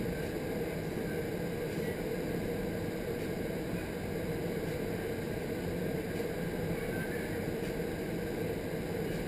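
Vertical wind tunnel for indoor skydiving running at flying speed: a steady rush of air through the flight chamber with a low, even hum from the fans beneath it.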